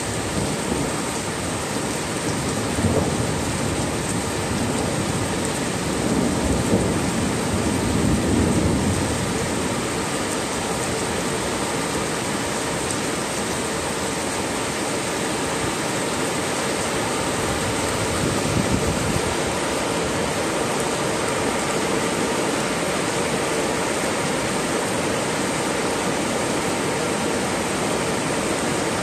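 Heavy downpour hissing steadily, with low rumbles of thunder rolling in several times in the first ten seconds and once more around the middle.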